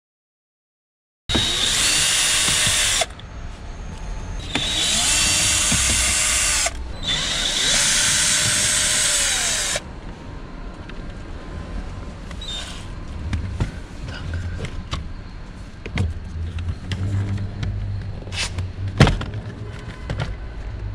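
Cordless drill-driver running in three bursts of two to three seconds each, its motor whine rising and falling as it backs out the screws holding the lower left dash panel. Then quieter handling noise, with scattered clicks and knocks as the plastic panel is worked loose.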